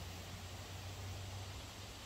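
Faint, steady background noise: an even hiss with a low hum underneath, and no distinct sound standing out.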